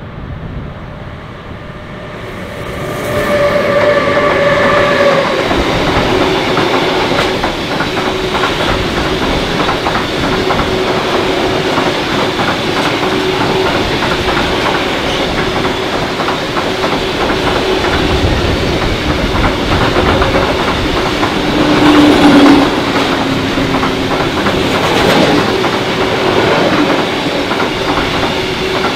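A freight train of hopper wagons passes close by. The noise swells as the locomotive arrives about three seconds in, with a brief pitched tone. Then the wagons roll past with continuous rattling, clattering wheel noise on the rails.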